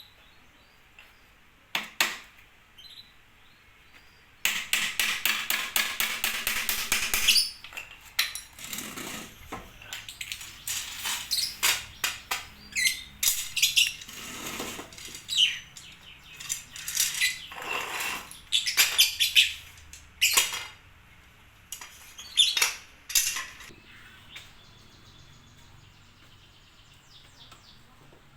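Bird cage parts being handled and fitted together during assembly: a rapid rattling run of clicks about four seconds in, then irregular clicks, knocks and scrapes that die away near the end.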